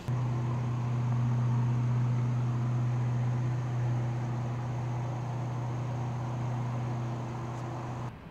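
Steady low mechanical hum, starting abruptly and cutting off abruptly after about eight seconds.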